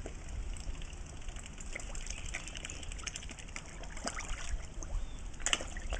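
Pond water splashing and lapping in many small irregular splashes as black swans dip their bills and koi gulp at the surface.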